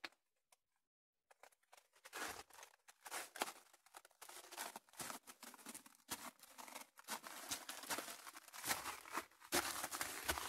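Footsteps crunching and scraping over a loose rocky floor, irregular and faint, starting about two seconds in after near silence.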